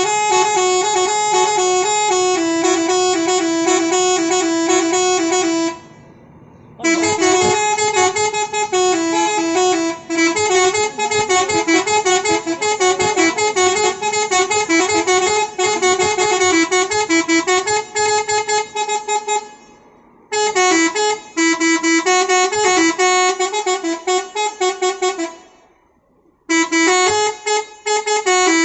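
Bus telolet horn, a multi-trumpet air horn, playing a long, winding melody of quick-changing notes in several phrases, with short breaks about 6, 20 and 26 seconds in.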